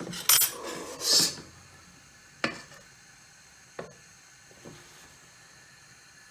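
Spoons clinking and scraping against a bowl as pancake batter is scooped, then three single sharp taps, each fainter than the last.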